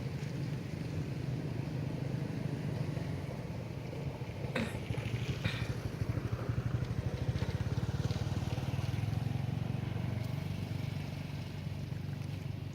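A vehicle engine running steadily, a low throb that pulses more strongly in the middle. Two short, sharp higher sounds come about a second apart, a third of the way in.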